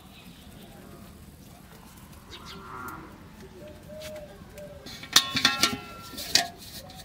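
Aluminium cooking pot knocked and clanking as green stems are pushed down inside it: a quick run of loud ringing knocks a little past halfway, and one more about a second later.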